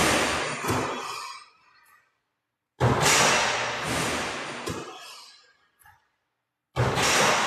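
Rushing whoosh-like sound effect that hits as each shot drops through the hoop, about every four seconds. Each one starts sharply and fades over about two seconds, with dead silence between.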